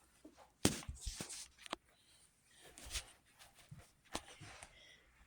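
A few scattered clicks and knocks with some rustling between them, like things being handled or moved; no motor is running.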